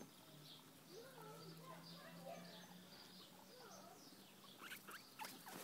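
Guinea pigs squeaking softly over and over, short faint squeaks that glide up and down in pitch, with a few sharp clicks near the end.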